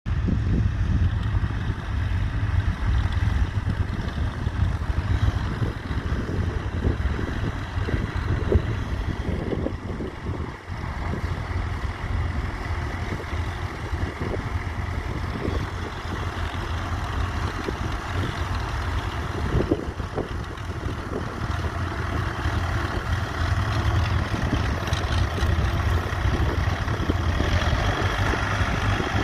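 Fordson Power Major tractor engine running steadily with a low throb.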